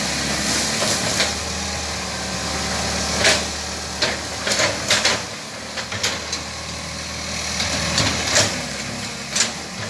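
Excavator diesel engine running steadily, with a scattering of sharp knocks and cracks over it, the loudest about three seconds in and again near the end.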